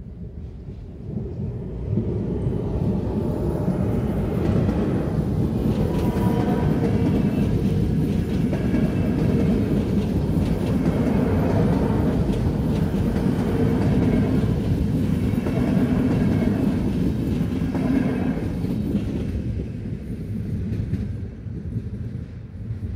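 ČD class 471 CityElefant double-deck electric unit passing close by at a level crossing: a steady rumble of wheels on the track with scattered clicks over the rail joints. It builds about two seconds in and fades away near the end.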